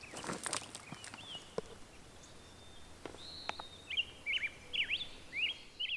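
A songbird singing a quick series of chirping, sweeping notes, starting about three seconds in and growing busier toward the end. It sings over faint outdoor ambience, with a few soft knocks in the first second or so.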